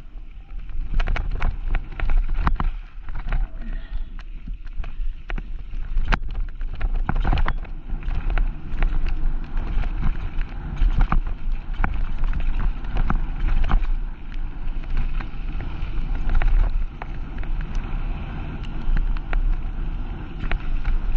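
Mountain bike riding down a rough bike-park trail: wind buffets the microphone with a steady low rumble, and frequent irregular sharp clatters come from the bike hitting bumps and rocks.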